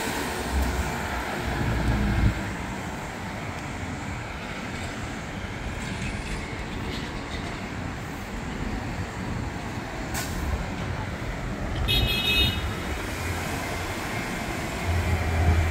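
Downtown street traffic: a METRO city bus's engine rumbling low as it pulls away in the first two seconds, then a steady traffic hum. A brief high squeal comes about twelve seconds in, and another vehicle rumbles past near the end.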